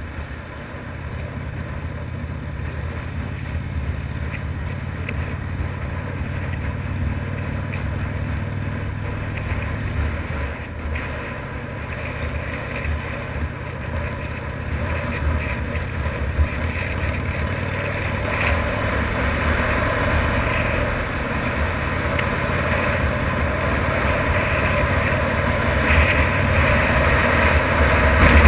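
Harley-Davidson V-twin motorcycle engine running as the bike rides along, its low rumble under wind and road noise that grows steadily louder as it gathers speed in the second half.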